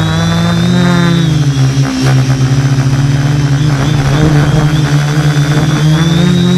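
Radio-controlled aircraft's motor and propeller buzzing steadily, heard from on board, the pitch dropping about a second in and rising again near the end as the throttle changes.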